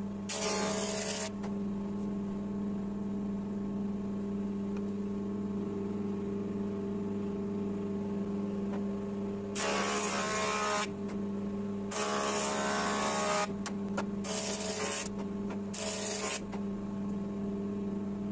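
GTM SP-150 jointer running with a steady motor hum, its cutterhead planing a wooden board in five passes: a short rasping cut about a second in, then four more cuts between about ten and sixteen seconds in, with only the idling hum between them.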